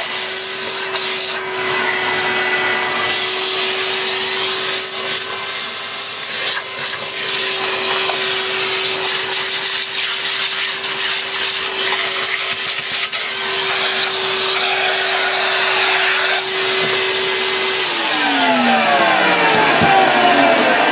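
Bush VCS35B15K0D-70 bagless cylinder vacuum cleaner running, with a steady motor whine over rushing air. About three seconds before the end it is switched off and the motor winds down, its pitch falling.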